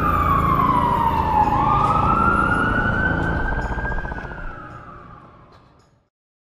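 A siren wailing over a deep rumble, its pitch sliding down and then back up once. It fades out over the last couple of seconds.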